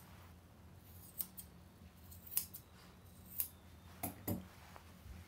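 Steel grooming shears snipping the hair around a Maltese's foot: a handful of short, separate snips about a second apart.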